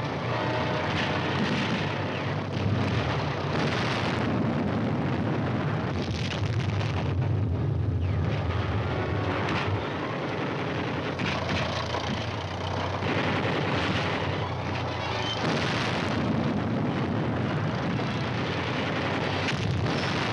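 Artillery shells exploding: several heavy blasts over a continuous rumble of battle.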